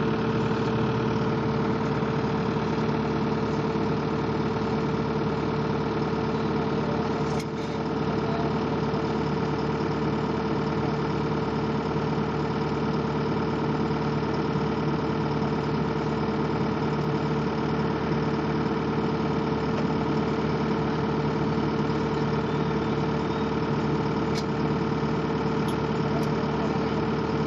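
Skid steer engine running steadily at constant speed, with a steady hum and no hammer blows.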